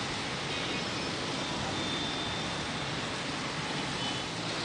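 Steady road traffic noise from many cars, buses, auto-rickshaws and motorcycles moving slowly along a flooded street.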